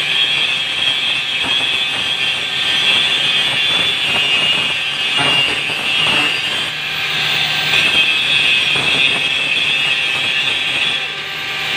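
Angle grinder's spinning disc grinding against metal: a steady high-pitched whine over a grinding hiss.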